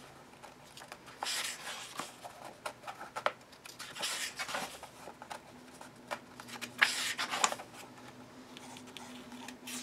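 Paper pages of a paperback colouring book being turned by hand, rustling in several short swishes a few seconds apart.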